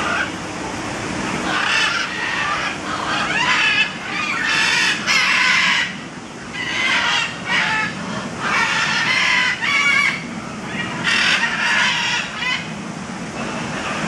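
Parrots squawking: harsh, loud calls one after another with short gaps, a few with a quick stuttering rattle.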